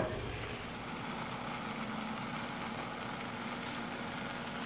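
Squid simmering and sizzling in its own released liquid in a stainless steel pot, a steady hiss with a low steady hum underneath; a brief knock right at the start.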